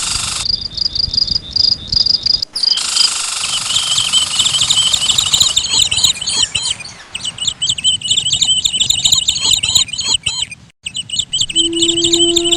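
Rapid, high-pitched chirping of birds, dense and overlapping, with pulsed trills. It breaks off abruptly a few times where short recordings are spliced together.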